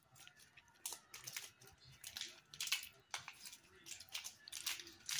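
Thin clear plastic packaging crinkling and tearing as it is peeled off a small slime toy by hand, in an irregular run of short crackly rustles.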